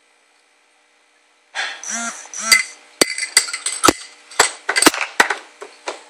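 A baby makes brief squeaky vocal sounds, then her spoon knocks on the plastic high-chair tray and food bowl about eight times over three seconds as she feeds herself.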